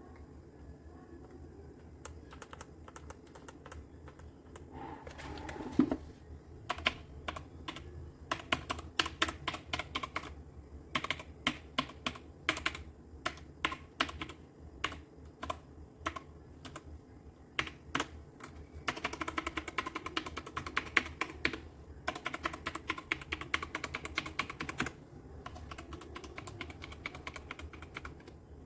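Keys of a Redragon K596 Vishnu mechanical keyboard with linear red switches clacking as someone types. It starts with scattered single strokes, then turns to steady typing with fast runs in the second half.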